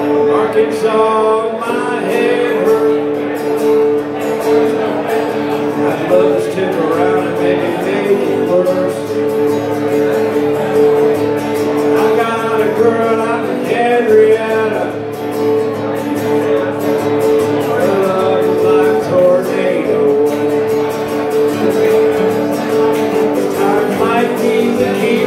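Live country song: a man singing while playing an acoustic guitar.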